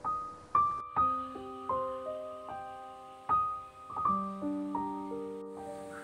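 Slow, soft background piano music: single notes and small chords struck every half second to second and left to ring out.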